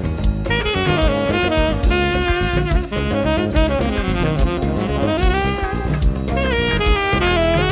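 Tenor saxophone soloing in a big band jazz-fusion piece over drum kit and rhythm section, its line sliding and bending between notes.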